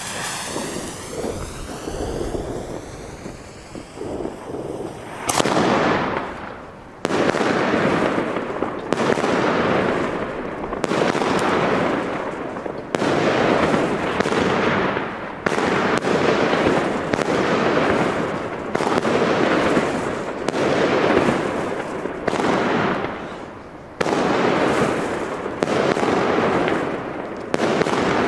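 Riakeo 'Cyber World E' 20-shot 30 mm fireworks battery firing: after a few seconds of quieter noise, shots go off one after another about once a second, each a sharp bang followed by a hiss that fades.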